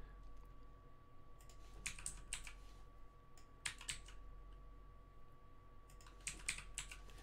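Computer keyboard keys being pressed, sharp clicks coming in small clusters every couple of seconds, over a faint steady hum.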